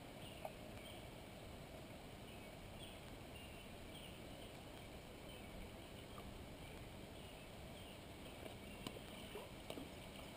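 Quiet outdoor ambience: a faint steady hiss with scattered faint high chirps, and a few soft clicks near the end.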